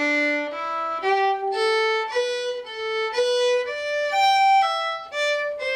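Solo fiddle, bowed, playing the ending phrase of an Irish reel in G slowly, starting from the pickup notes: one clear note after another, each held about half a second.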